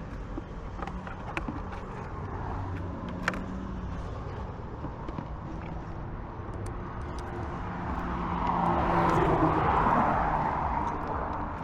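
A road vehicle passes, its noise building to a peak about nine seconds in and then fading, over a steady low traffic hum.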